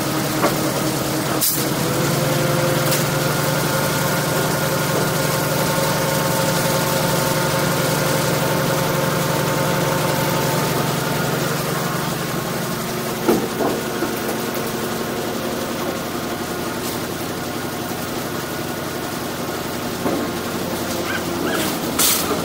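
Truck engine running steadily, louder for about the first ten seconds and then easing down a little, with a few sharp knocks of the load being shifted.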